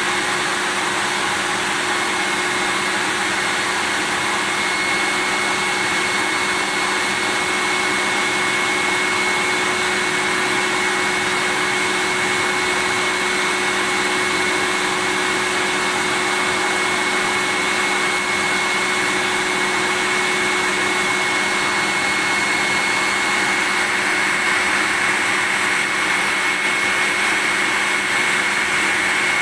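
Vacuum cleaner running steadily: an even rushing hiss with a steady high whine and a fainter lower hum, unchanging throughout.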